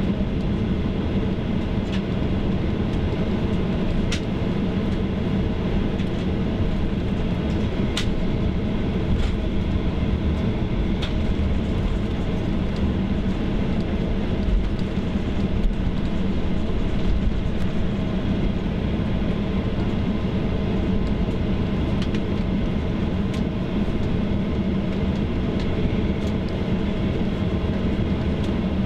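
Cabin noise of a Boeing 737-800 taxiing: the steady hum of its CFM56 engines at low thrust and the rumble of the landing gear rolling over the pavement, with a few sharp knocks as the wheels cross taxiway joints.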